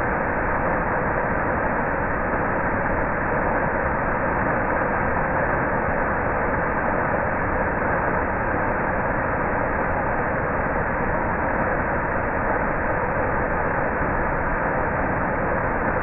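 Waterfall pouring over a rock ledge into a pool below, a steady rushing noise that does not change.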